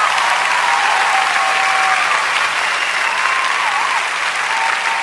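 Crowd applauding and cheering, with shrill whistles gliding over a steady roar of clapping.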